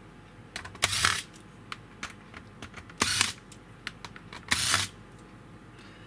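Three short clicking, rattling noises from small tools and laptop parts being handled on a workbench, about a second in, three seconds in and four and a half seconds in.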